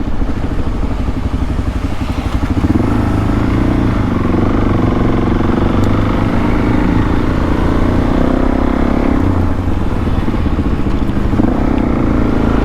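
Suzuki DR-Z400S single-cylinder four-stroke engine running under way on the road. The revs rise about two seconds in, then hold steady.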